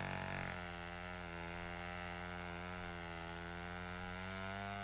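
A sustained, held chord of background music with no speech, its notes shifting about half a second in and then holding steady.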